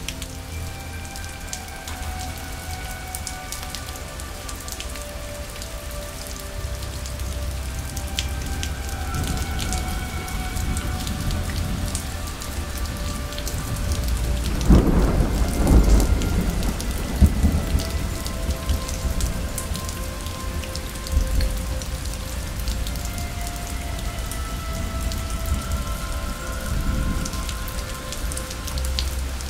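Steady rain with rolling thunder, the loudest rumble about halfway through, and faint held tones underneath.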